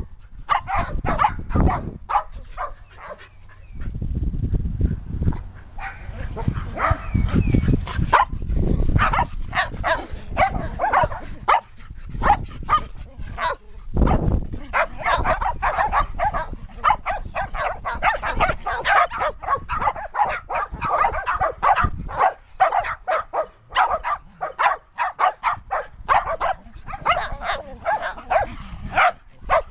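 Several Shetland sheepdogs barking nonstop, many short barks overlapping one another in a steady barrage.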